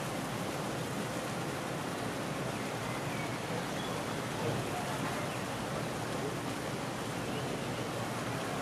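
Steady outdoor ambient noise: an even hiss with no distinct events in it.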